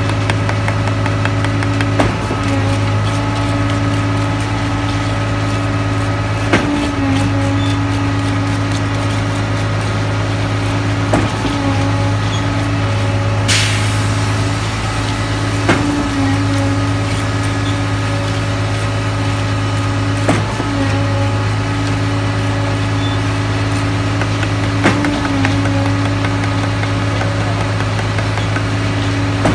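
A large diesel truck engine runs steadily with a low, even hum. A knock comes about every four and a half seconds, and a short hiss of air sounds about halfway through.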